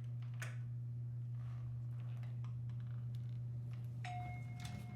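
Hotel room's electronic doorbell chime sounding after the button is pressed: a clear ringing tone starts about four seconds in and holds, over a steady low hum.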